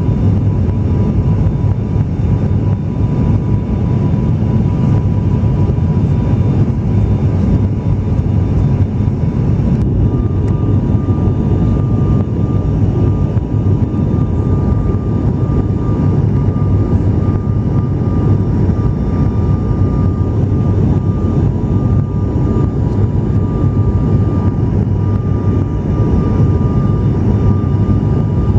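Cabin drone of an ATR turboprop airliner in flight: a steady, loud engine and propeller noise with a strong deep hum and a faint high tone that steps up slightly in pitch about ten seconds in.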